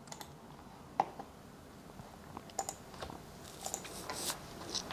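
Sparse, soft clicks and taps from a computer mouse and laptop keyboard, the sharpest one about a second in and a few close together near the end.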